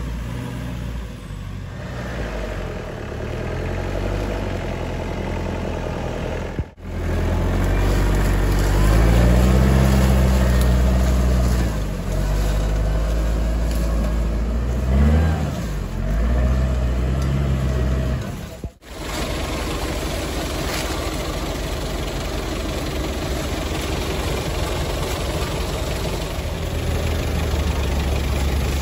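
Off-road 4x4 vehicle engine running and revving, its pitch rising and falling as it works. It is loudest for a few seconds near the middle, and the sound cuts out abruptly twice.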